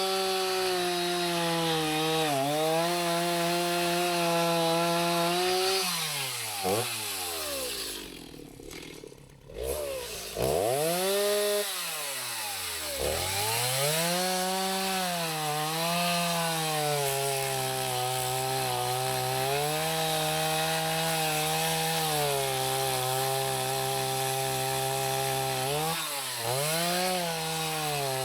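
Gas chainsaw cutting through a dead white oak log, its engine held near full revs and sagging under load in the cut. About six seconds in the throttle drops off and the engine winds down before revving up again, and it dips once more a few seconds later before running steadily on.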